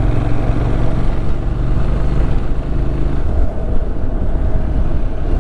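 Motorcycle engine running while riding, under a steady rushing noise. The engine note holds even for the first three seconds, then turns rougher and less steady.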